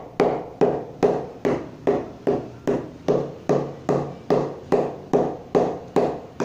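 A mallet knocking the face of a new Kashmir willow cricket bat, in steady hollow knocks about two and a half a second, each ringing briefly off the wood. He is testing the bat's sound along the blade, which he says rings best in the middle and a little less near the toe.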